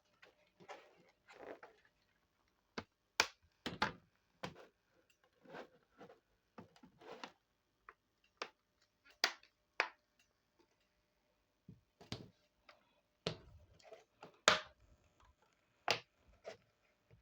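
HP 14s laptop being put back together after a RAM swap: irregular clicks, knocks and short scrapes from handling and fitting the case parts, with the sharpest clicks about three seconds in and about three seconds before the end.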